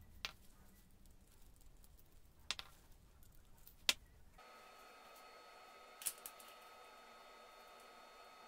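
Three light, sharp clicks of steel hex bolts being set down one by one on a table. Then a faint steady hum with two more quick clicks.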